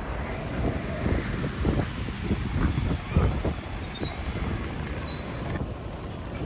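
Street ambience of passing traffic, a steady low rumble, with wind buffeting the microphone. A few faint high tones come and go in the second half.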